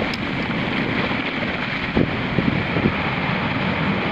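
Ocean shorebreak surf, a steady rushing noise of breaking waves, mixed with wind buffeting the microphone. A few short low thumps come about halfway through.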